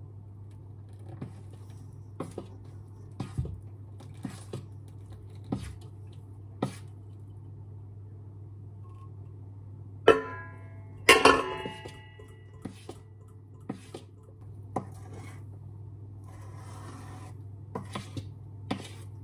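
A spoon clinking and scraping in a stainless steel mixing bowl as warm milk and butter are stirred into cake batter. There are scattered light clicks, and two loud ringing clinks come about ten and eleven seconds in.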